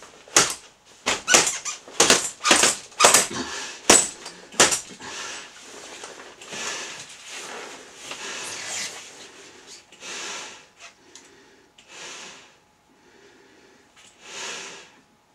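Rubber gear squeaking and creaking in quick sharp strokes as the wearer moves. From about five seconds in, this gives way to slow, heavy breaths drawn through a gas mask's breathing hose, one every second and a half to two seconds.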